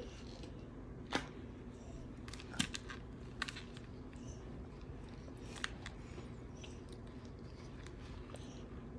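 Quiet eating sounds from a baby feeding herself king crab by hand, with a few small, sharp clicks scattered through, over a steady low hum.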